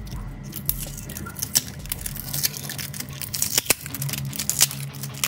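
Clear plastic film crackling and crinkling as it is picked at and peeled off a smartphone's metal mid-frame: a string of sharp, irregular clicks, over faint background music.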